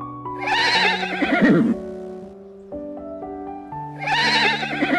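An animal's quavering cry that falls in pitch, heard twice, over background music with sustained notes.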